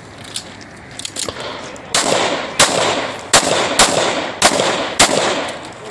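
Semi-automatic pistol fired in quick strings: six loud shots, about two a second, beginning about two seconds in, with a few fainter cracks in the first second and a half.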